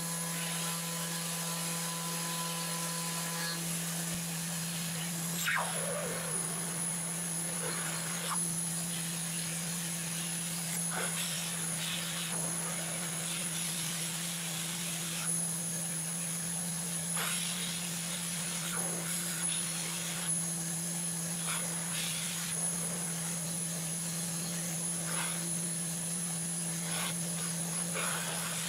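Desktop CNC router cutting a pocket in a pine board. The spindle runs with a steady high whine over a constant hum, while the stepper-driven axes whir in short rising and falling sweeps and the bit gives off scattered sharp ticks as it bites into the wood.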